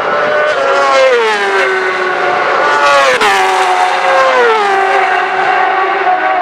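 Racing superbikes at high revs going past at speed, the engine note falling steeply in pitch three times as the machines go by.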